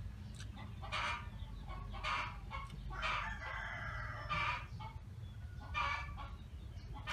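Chickens clucking in short calls about once a second, with a rooster crowing once about three and a half seconds in.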